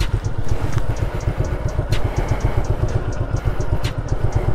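Motorcycle engine running at low revs with a fast, even pulsing beat, with two sharp knocks about two seconds apart.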